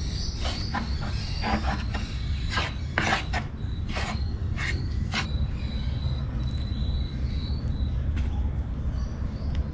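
Metal spoon stirring and scraping flour against a wooden bowl: a run of short scrapes and taps for about the first five seconds, then only a few. A steady low rumble runs underneath, and a faint high whine comes and goes.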